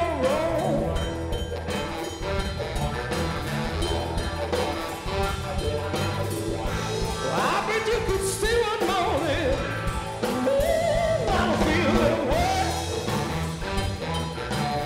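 A live blues-rock band playing: electric guitar, bass and drum kit, with a lead line that slides and bends in pitch over them.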